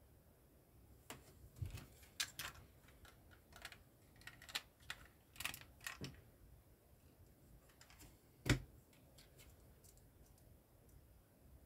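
LEGO plastic bricks being handled and pressed together: irregular small plastic clicks and snaps, bunched in the first half, with one louder snap about eight seconds in.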